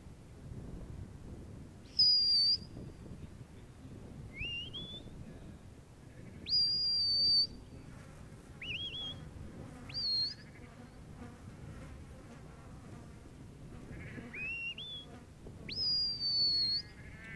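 Sheepdog handler's whistle commands to a working Border Collie: a series of about seven sharp high whistle blasts, some long and level, others short and rising in pitch, spaced a second or two apart.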